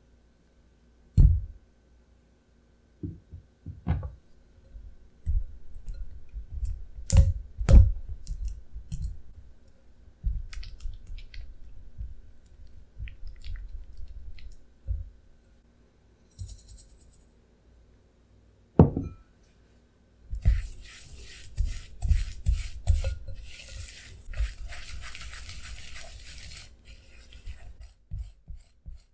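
Kitchen utensils and bowls being handled: scattered knocks, taps and clinks, then, past the middle, a long run of fast scratchy scraping strokes, as of mixing or stirring ingredients in a bowl.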